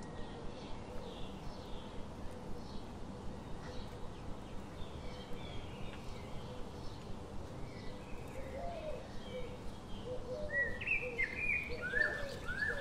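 Small birds chirping, with short calls throughout and a louder run of quick descending chirps near the end.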